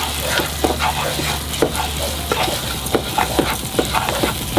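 Raw jasmine rice and mashed garlic sizzling in hot olive oil in a metal saucepan, searing on high heat, while a wooden spoon stirs and scrapes the grains, giving many small irregular scrapes and taps over a steady sizzle.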